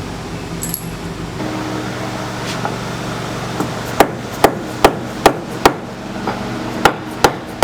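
A run of sharp knocks, like hammer blows: five at about two a second starting just past halfway, then three more near the end, over a steady low hum.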